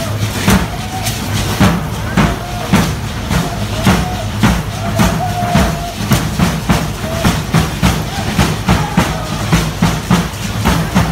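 Matachines dance drums beaten in a steady, even rhythm of about two beats a second, with the dancers' hand rattles shaking on the beat.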